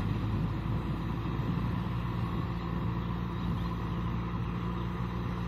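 Kubota M6040 SU tractor's four-cylinder diesel engine running at a steady pitch under load as it tills a flooded rice paddy.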